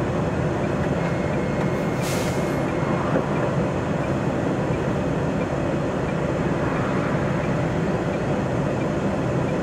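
MAN TGX lorry's diesel engine running steadily, heard from the cab, with a short hiss of air from the air brakes about two seconds in.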